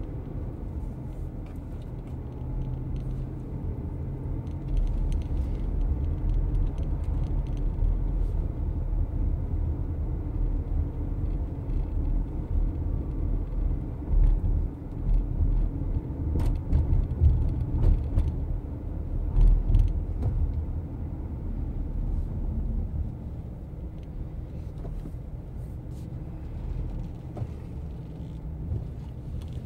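A car driving, heard from inside the cabin: a steady low rumble of engine and tyres on the road, a little louder through the middle and easing toward the end.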